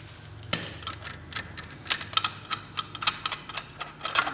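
Irregular light clicks and taps, roughly two a second, as the bolt and adjuster are worked off a snowmobile's driven clutch by hand.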